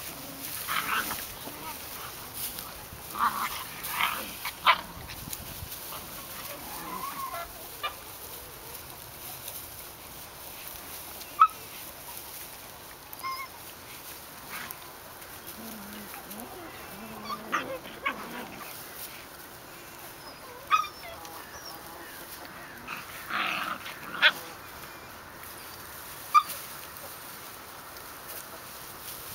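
White Swiss Shepherd puppies playing rough with adult dogs: short high squeaks and yips come every few seconds, a few of them sharp and sudden, over a faint steady background.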